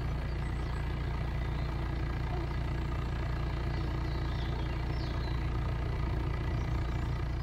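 Narrowboat's diesel engine running steadily at low revs while the boat cruises slowly, a constant low hum.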